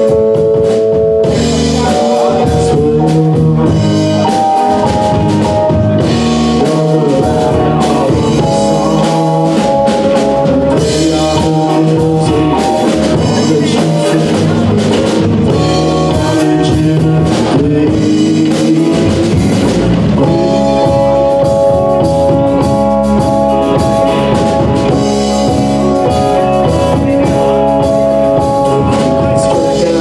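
Live rock band playing an instrumental passage with no vocals: electric guitar, bass guitar, drum kit and Roland stage piano. Held keyboard chords come in about two-thirds of the way through.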